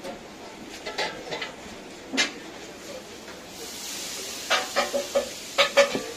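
Metal utensils clinking and scraping on a wide, shallow steel pan of frying meat, over a steady sizzle. A louder burst of sizzling hiss comes around four seconds in, as liquid is squeezed from a plastic bottle onto the hot pan, followed by a quick run of sharp clinks.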